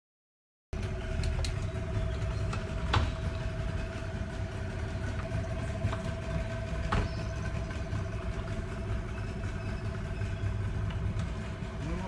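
Small boat motor running steadily at low speed, a low rumble with a steady hum on top, starting after a moment of silence. Two sharp knocks sound a few seconds apart.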